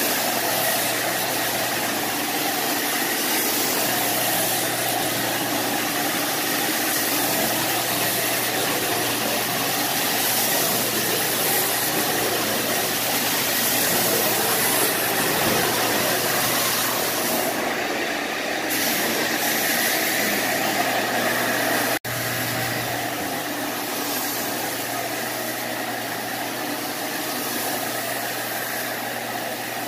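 Carpet rake teeth drawn through carpet pile with a continuous scratchy rustle, over the steady hum of a running motor. The sound breaks off for an instant about two-thirds of the way through, then carries on slightly quieter.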